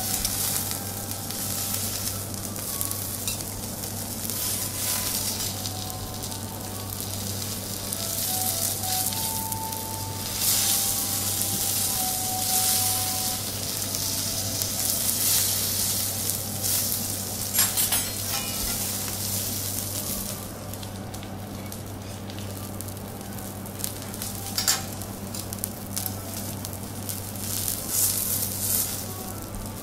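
Akita beef steak sizzling steadily on a hot teppanyaki steel griddle, with a few sharp clicks of the chef's knife and fork against the plate. A low steady hum runs underneath.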